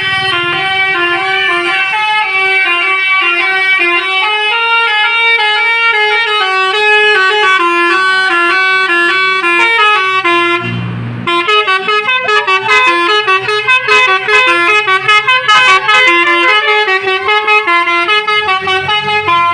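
Bus 'telolet Basuri' musical air horn playing a melody in loud stepped notes. About eleven seconds in it breaks off briefly, then plays a second, choppier tune of quick repeated notes.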